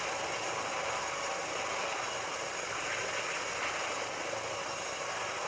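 A steady, loud rushing engine noise, unchanging throughout.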